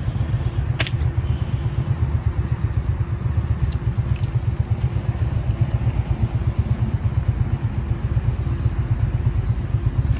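A single air rifle shot about a second in, one sharp crack, over a steady low rumble. Two faint ticks follow around four seconds in.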